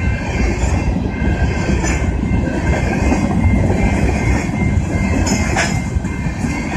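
BNSF freight train of covered hopper cars rolling through a grade crossing: a steady rumble and clatter of steel wheels on rail, with a brief sharp clank about five and a half seconds in.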